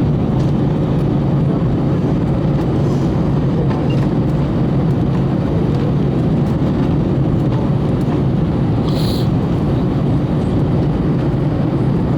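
Steady roar of air and engine noise inside an Airbus A321 passenger cabin, even and unchanging.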